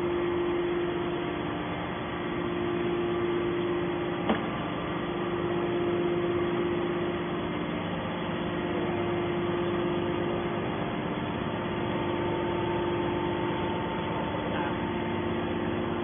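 Hydraulic power unit of a scrap metal baler running: a steady machine hum with a strong low tone and fainter tones above it, and one sharp click about four seconds in.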